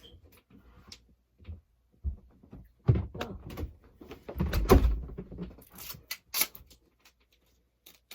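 Handling knocks and thumps, the loudest about three and five seconds in, followed by a couple of short sharp crackles.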